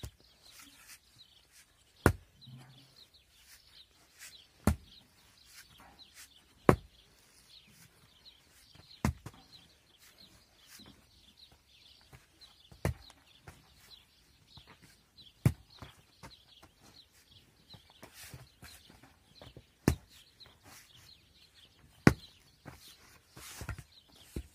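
Pickaxe striking hard-packed earth to dig out the foot of a wooden tent pole: about eight sharp blows, two to three seconds apart. Birds chirp faintly between the blows.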